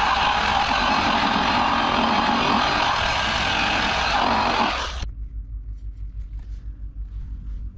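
Electric variable-speed buffer running with a white polishing pad against a plastic headlight lens on the final polishing pass: a loud, steady whir that cuts off about five seconds in.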